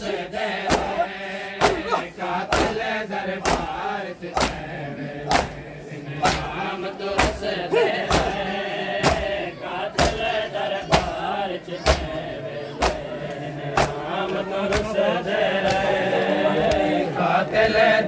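A group of men chanting a noha, a mourning lament, in unison, with open-palm chest-beating (matam) strikes landing together at an even pace of about one a second.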